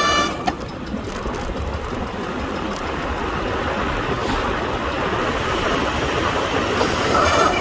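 Road bike disc brakes squealing with a high, ringing tone that cuts off about a third of a second in. Then wind and tyre rush as the bike rolls freely, with the squeal coming back faintly near the end as the brakes are applied again.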